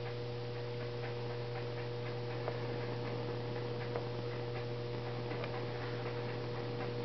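Steady low electrical hum and faint hiss of background noise, with a few faint scattered ticks.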